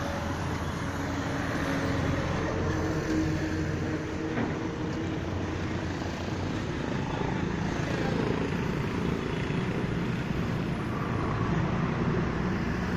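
Steady highway traffic passing close by: a rush of tyres and engines from cars and heavy vehicles. Engine notes fall in pitch as vehicles go past, about halfway through and again near the end.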